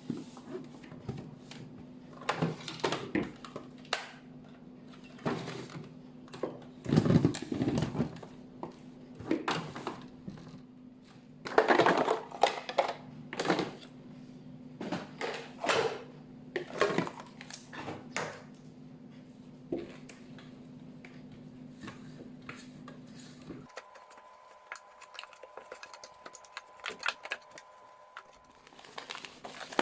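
Irregular clatter, knocks and rustles of food containers and packages being handled, over a steady low hum. The hum cuts off about three-quarters of the way through, leaving a fainter, higher steady tone.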